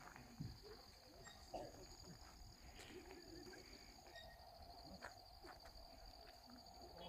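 Faint steady chirring of insects, a high continuous pulsing trill, with a few faint light knocks.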